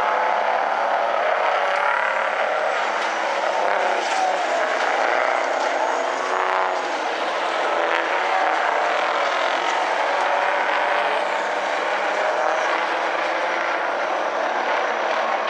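Several big-rig race trucks' engines running hard around a dirt oval, a steady loud din whose pitch rises and falls as trucks pass.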